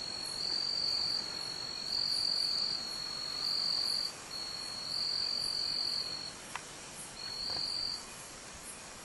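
A cricket singing a continuous high-pitched trill that swells louder in phrases of about a second. It breaks off about six seconds in and comes back briefly near the end.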